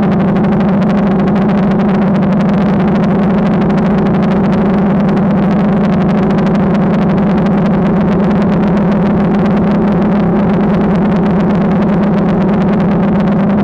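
DJI Phantom quadcopter's propellers and motors, heard from the GoPro mounted on the drone in flight: a loud, steady buzzing hum with a fast flutter.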